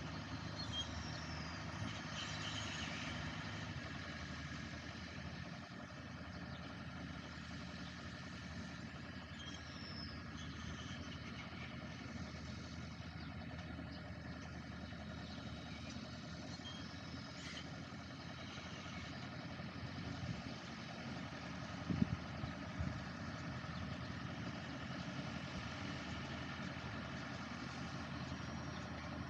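Farm machine's engine running steadily at a low, even speed, with a couple of sharp knocks about three-quarters of the way through.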